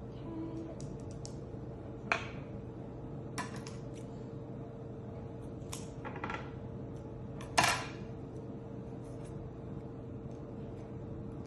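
A few short clicks and taps from handling craft materials on a table, the loudest about two-thirds of the way in, over a steady hum.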